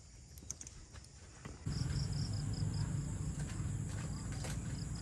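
Insects chirping in a quick, even pulse over a steady high buzz. About two seconds in, a louder low rumble cuts in abruptly and runs on under the chirping.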